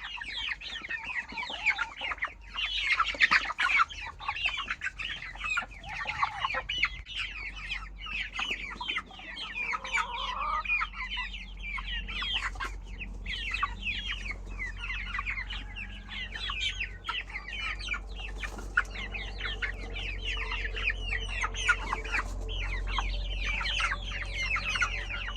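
Chickens clucking, many short calls in quick succession, with a low rumble underneath.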